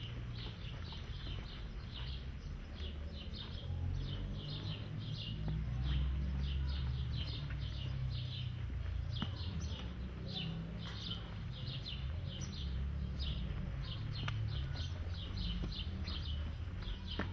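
Small birds chirping in quick, repeated short notes, several a second, over a steady low rumble.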